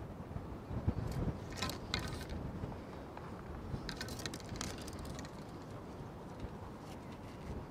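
Fishing tackle being handled on a pole-fishing platform: a few brief clicks and rustles, a cluster about a second in and another around four seconds, over a steady low rumble.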